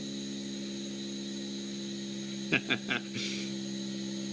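Small 12-volt electric fan running inside a vacuum chamber with a steady hum and overtones, the motor vibrating as air is let back into the chamber. A faint hiss of the incoming air starts about three seconds in, just after a brief vocal sound.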